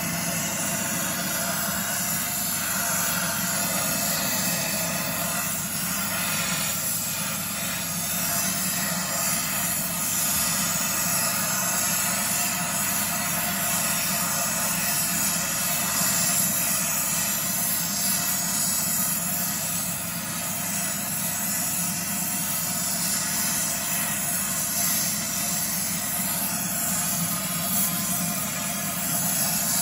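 Oxy-fuel torch flame hissing steadily as it heats a stack of steel horseshoes.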